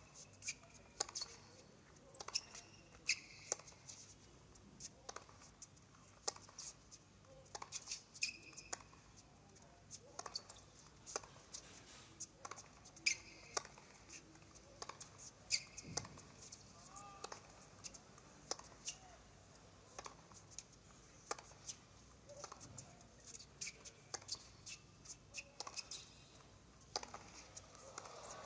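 Tennis rally on a hard court: repeated sharp hits of rackets striking the ball back and forth, with short squeaks of the players' shoes on the court surface between shots.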